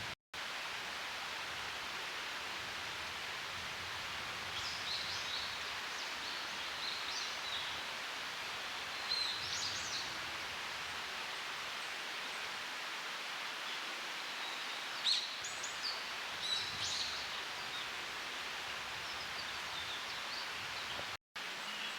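Steady outdoor background hiss with faint, high, short chirping calls in a few clusters; the sound cuts out completely for a moment near the start and again near the end.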